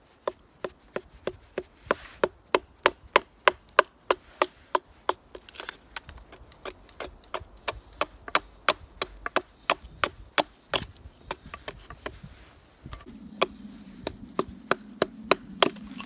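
Hatchet hewing a thin split wooden board held against a log: quick, even chopping strikes, about three a second, with chips flying off. The strikes pause about two-thirds through, then a few more come over a steady hum near the end.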